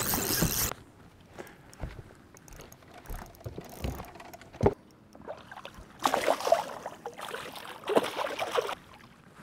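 Spinning reel being cranked, its mechanism clicking, while a hooked bass is played to the boat; the fish splashes at the surface twice in the second half. A loud rushing noise cuts off suddenly within the first second, and a single thump comes a little before halfway.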